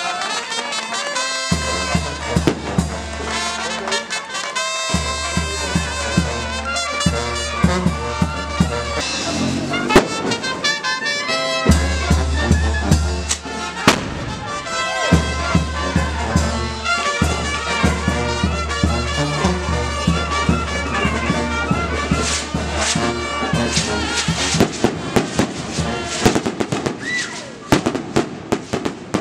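A brass band playing, with a deep tuba bass line under trumpets. Firecrackers bang a few times, then more rapidly near the end.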